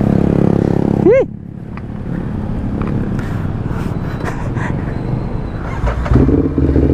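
Ducati Hypermotard motorcycle engine running steadily, picking up and getting louder near the end.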